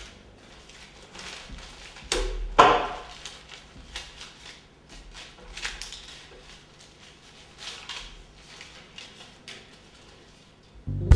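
Small handling sounds at a wooden table: scattered light clicks and paper-like rustles, with one louder scrape about two seconds in. Music comes in right at the end.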